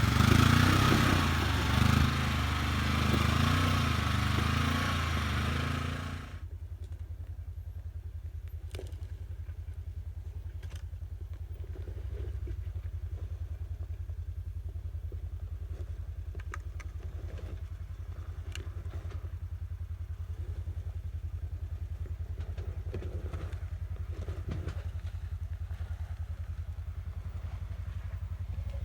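2020 Polaris Ranger 1000 side-by-side's twin-cylinder engine running loud under power with rough-terrain noise. About six seconds in it drops suddenly to a steady, even low running, with scattered light clicks and scrapes.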